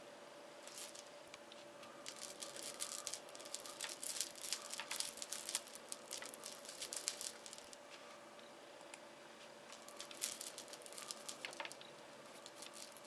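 Scratchy, crackling handling noise of hands and fingers brushing and rubbing close against the recording phone, in two spells: a long one from about two seconds in and a shorter one a few seconds before the end. A faint steady hum runs underneath.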